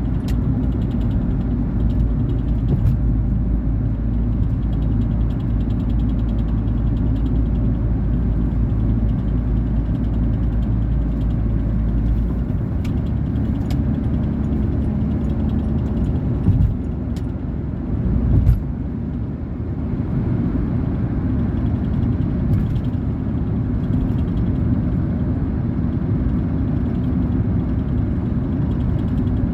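Engine and road noise of a 2019 Volkswagen Polo Vivo heard from inside the cabin while driving: a steady low drone whose pitch changes about twelve seconds in, with two brief louder bumps a few seconds later.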